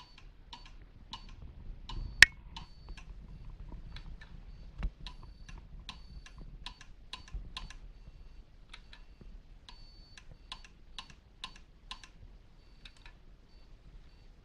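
Telegraph key being tapped out in Morse code: paired clicks as the key closes and opens, held briefly for dots and longer for dashes, with a faint high beep sounding while the key is down. One single sharp click, much louder than the rest, comes about two seconds in.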